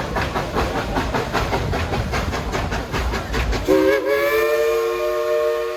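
Coal-fired 2-8-2 steam locomotive No. 70 running, with a fast, even beat of about five strokes a second over a heavy rumble. About two-thirds of the way in, its steam whistle starts a steady chord of several notes that holds on.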